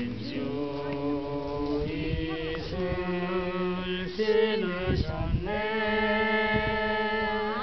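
Several women singing together, holding long, steady notes.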